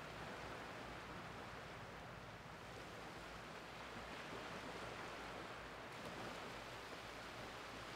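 Small waves of the incoming tide washing in over a flat, shallow sandy beach: a faint, steady hiss of water.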